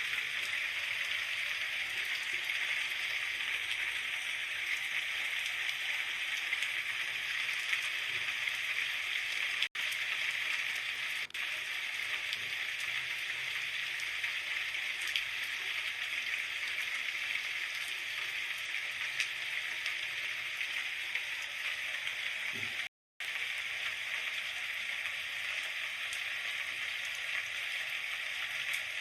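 Steady rain falling: an even hiss with faint scattered drop ticks, broken by a brief gap of silence about three-quarters of the way through.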